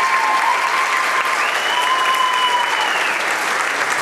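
Audience applauding steadily, with a few long, high held tones sounding over the clapping.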